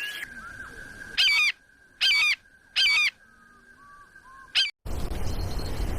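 A bird giving loud, honking calls: three about a second apart, then a shorter fourth, over a faint steady high tone. Near the end the sound cuts abruptly to a steady rushing noise.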